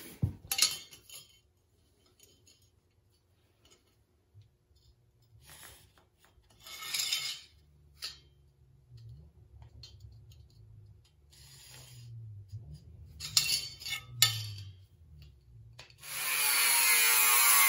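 A few short scraping and handling sounds, then near the end an angle grinder cutting through sheet metal, a loud steady grinding that starts suddenly.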